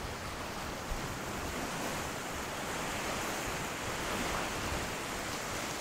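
Steady rush of sea surf washing onto a sandy beach, with wind buffeting the microphone underneath.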